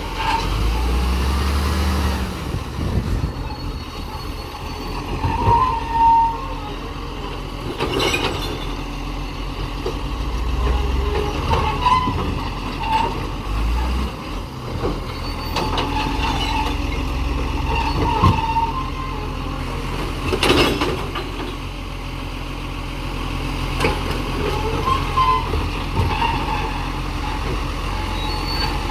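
Side-loading garbage truck's diesel engine running as the truck creeps between kerbside bins, with short squeals from its hydraulic lifting arm and brakes, and two sharp knocks, about 8 seconds in and about 20 seconds in.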